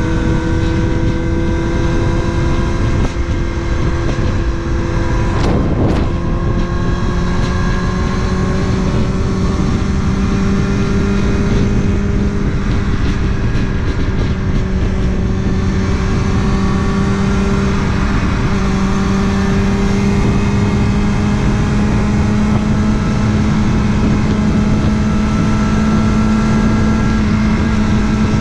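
Kawasaki ZX6R inline-four engine running at a steady cruise over a continuous rush of riding noise, its note creeping slowly higher, with a brief swell of noise about six seconds in.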